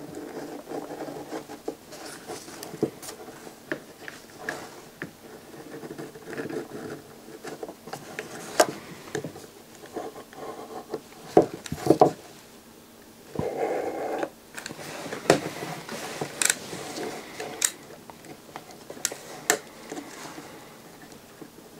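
Utility knife blade scraping and prying at the metal lid of an Inverto satellite LNB housing, lifting its covering: irregular short scrapes and sharp clicks of the blade against the metal, with one longer scrape about two thirds through.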